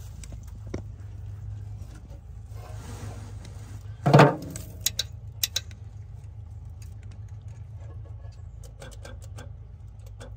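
Starter solenoid on a Marmon cab-over semi clicking as it is energized: a short loud burst about four seconds in, a few sharp clicks, then a run of rapid clicking near the end over a steady low hum. The solenoid's contact points are in poor shape and the jump batteries are weak.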